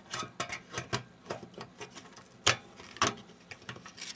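Irregular clicks and taps of a monitor's power circuit board being handled and set back into place in the monitor's frame, with two louder knocks about two and a half and three seconds in.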